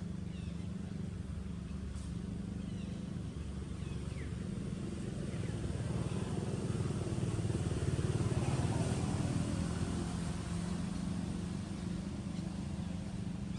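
A motor engine running steadily with a low hum, swelling louder for a few seconds around the middle.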